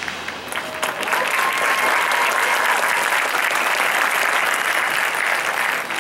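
Audience applauding in the stadium stands, swelling about a second in and then holding steady.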